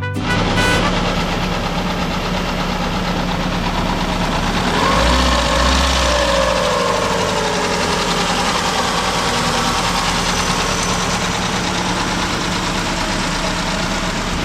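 1996 Ford Escort's 1.9-litre four-cylinder engine idling steadily, with a brief rise and fall in pitch about five seconds in. The freshly installed engine is running smoothly.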